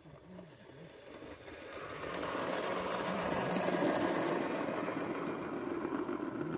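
A 5-inch gauge live steam locomotive hauling a rake of coaches past at close range. The sound of the engine and its wheels on the track grows louder as it approaches, is loudest as the locomotive passes about four seconds in, and eases off as the coaches follow.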